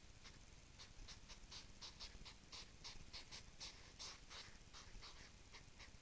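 European hedgehogs' courtship snorting: a fast run of short, faint huffing puffs, about four or five a second, picking up about a second in. This rhythmic huffing is the sign of hedgehogs courting before mating.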